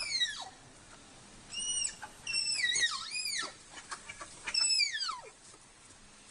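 An animal giving a series of shrill calls, each one sweeping sharply down or arching up and down in pitch. They come in three bunches: one right at the start, several between about one and a half and three and a half seconds in, and a last pair near five seconds.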